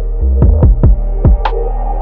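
Electronic background music with a deep bass drum and synth pads; several bass kicks fall in pitch, and sharp percussion hits recur about every half second.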